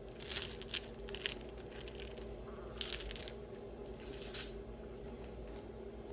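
Costume jewelry clinking and jingling as it is handled, in four short bursts.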